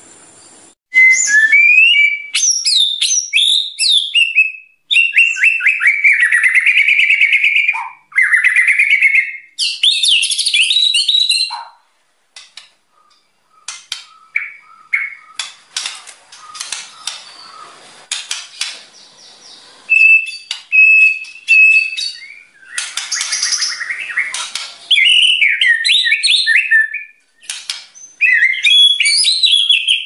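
White-rumped shama (murai batu) singing loud, varied whistled phrases in bursts, with a short near-silent pause about twelve seconds in. A quieter stretch of short notes and ticks follows before the full song resumes.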